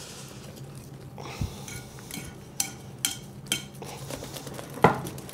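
Wire whisk stirring thick banana batter in a glass bowl, clinking against the glass about five times, the loudest knock near the end.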